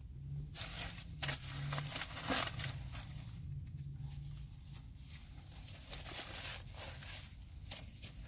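Paper burger wrapper rustling and crinkling in irregular bursts as it is handled, heaviest in the first few seconds and again near the end.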